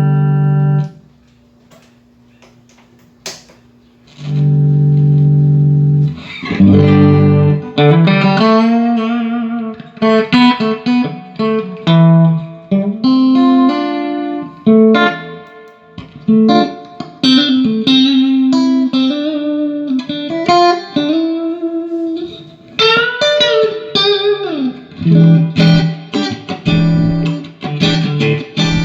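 Electric guitar played through a Fender Pro Reverb silverface amp, tested after a repair to a hole in its speaker cone: a held chord that stops about a second in, a pause of about three seconds with a faint click, another held chord, then single-note lines with string bends and a few chords near the end.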